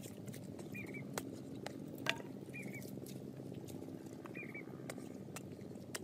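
A pointed wooden stick jabbing and scraping into dry, lumpy earth, giving irregular knocks and crunches, the sharpest about two seconds in. A bird's short chirping call repeats three times in the background, roughly every two seconds.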